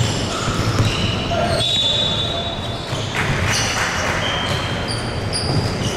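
Basketball being played on an indoor court: many short, high-pitched sneaker squeaks on the hardwood, with the ball bouncing.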